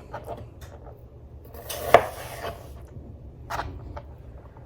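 Knife cutting partly frozen chicken breast into chunks on a cutting board: a few sharp knocks of the blade against the board, the loudest about two seconds in and another a second and a half later.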